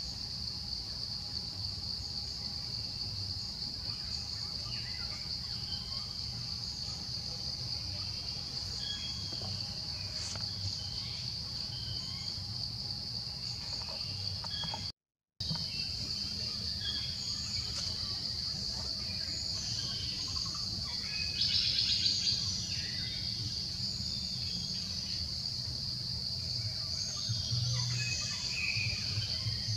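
Steady, high-pitched drone of insects, with scattered short chirps and squeaks over it and a denser flurry about two-thirds of the way in. The sound cuts out for a split second about halfway through.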